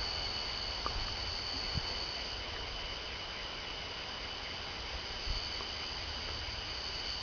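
Steady chorus of night insects, a continuous high trilling at two pitches. There is a low rumbling hiss beneath it and a few faint knocks.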